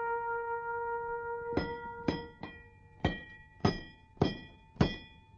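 A held brass chord dies away. From about a second and a half in, something metal is struck repeatedly, about every half second or a little more. Each hit is sharp and rings on with several clear, unchanging tones before the next.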